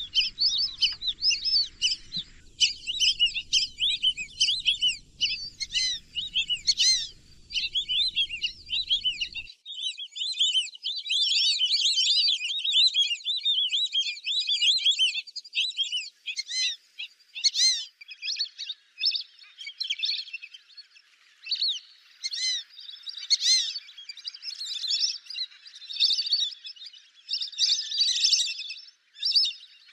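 A flock of lesser whistling ducks calling: many shrill, overlapping whistled notes in a continuous chatter.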